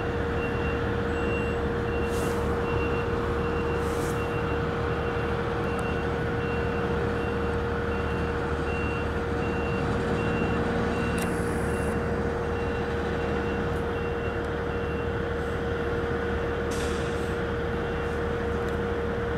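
Reversing alarm beeping steadily on an airport fire rescue truck as it backs into the station bay, over its diesel engine running. A few short hisses of air, typical of air brakes, come through, the longest near the middle.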